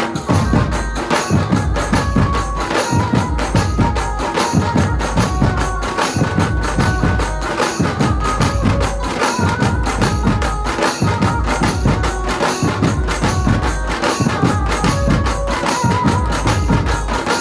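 Dhumal band playing a qawwali tune live: several large drums beaten with sticks in a fast, dense rhythm, with a steady, amplified melody line over them.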